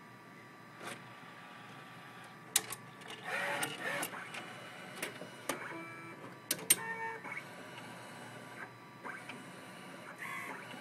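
Rimage robotic CD duplicator working: the disc-handling arm's motors whir and whine in short runs, with sharp mechanical clicks as the gripper picks and places a disc and the printer tray moves.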